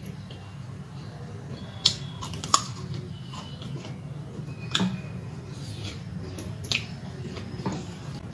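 Close-up eating sounds: rice and curry being mixed by hand on a plate and chewed, with a few sharp clicks and smacks, over a low steady hum.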